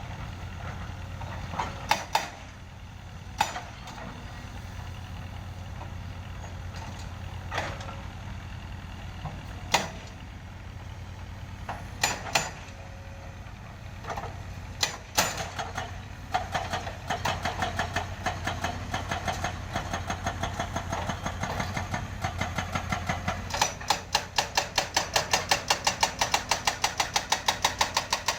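A heavy diesel engine runs steadily, with a few sharp knocks in the first half. Over the last third a fast, regular clatter of about four clacks a second builds up and grows louder near the end.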